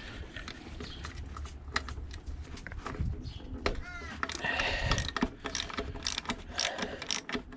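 Socket ratchet and tool clicking and knocking as tight bolts are worked loose on a Tecumseh lawnmower engine, with wind rumbling on the microphone. A brief high squeak about four seconds in.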